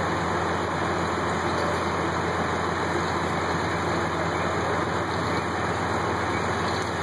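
Fire apparatus engines running steadily: a continuous drone with a constant low hum and no changes in pitch or level.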